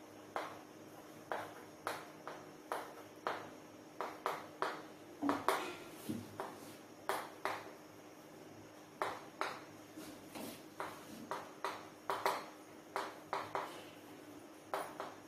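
Chalk tapping and scraping on a chalkboard as words are written: a string of short, sharp, irregular strokes, a few a second, with brief pauses between words.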